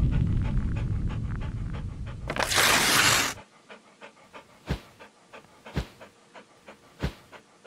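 A low rumble fades out and a loud swish sweeps through about two and a half seconds in. Then a dog pants in short, quick breaths, a few of them stronger.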